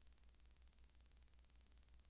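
Near silence: a faint steady hiss with a low hum underneath, and no sound from the race itself.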